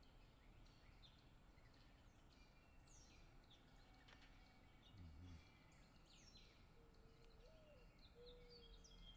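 Faint chorus of small songbirds chirping, with many short, quick calls overlapping, and a brief low sound about five seconds in.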